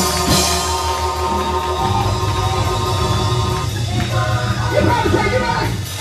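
Live church praise band playing: held keyboard chords over a drum kit, with a voice joining in during the last couple of seconds.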